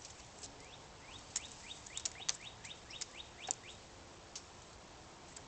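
Sharp snips of pruning shears, several in about two seconds, with a bird giving a quick run of short rising chirps in the background.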